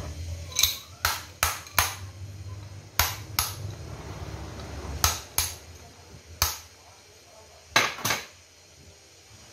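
About a dozen sharp metal-on-metal taps and clinks from hand tools, coming in pairs and small groups, as a steel rod or bit is worked at an electric drill's chuck. A low hum runs under the first half.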